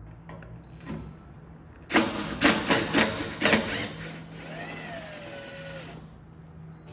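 Cordless power driver backing out a window-track screw in a steel car door, with no penetrant on the old, dry hardware: a burst of about six loud sharp knocks about two seconds in as it works the screw loose, then the motor whirring steadily, its pitch rising and falling, as the screw spins out.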